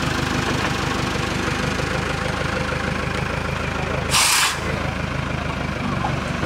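Heavy diesel engine idling steadily, with a short, sharp hiss of released air about four seconds in.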